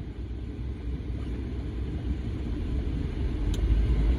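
Low road and engine rumble inside a moving car, growing gradually louder.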